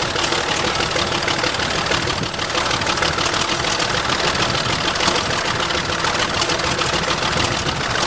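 The bulldozer's 750-cubic-inch engine running steadily with a dense, rapid clatter, dipping briefly about two seconds in.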